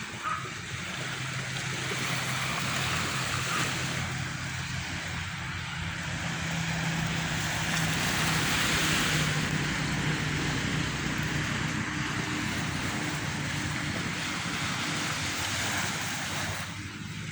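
Sea waves washing onto a sandy beach, the surf noise swelling and easing, with a steady low motor hum underneath.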